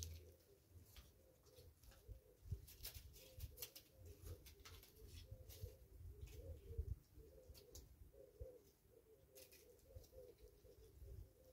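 Faint, continuous cooing of doves, with scattered light clicks and taps.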